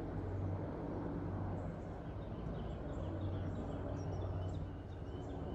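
Steady low engine hum, with small birds chirping in short calls through the middle of the stretch.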